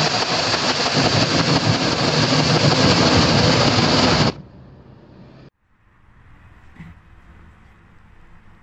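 Loud, dense engine noise that cuts off abruptly about four seconds in, followed by faint room tone with a single light click.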